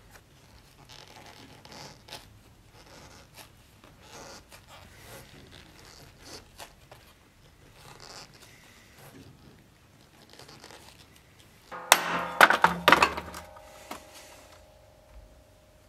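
Faint scratching of a hand tool worked along a leather scabbard, then about twelve seconds in a loud clatter of several sharp knocks, followed by a ringing tone that slowly fades.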